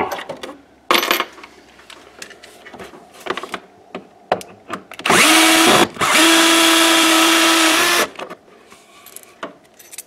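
Cordless drill backing out the microwave's mounting screws: a short whir about five seconds in, then a steady run of about two seconds. Light clicks and knocks come before and after.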